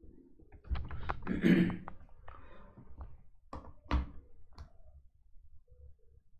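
Knocks and clicks of objects being handled, with a louder thud about a second and a half in and three sharp taps near the middle.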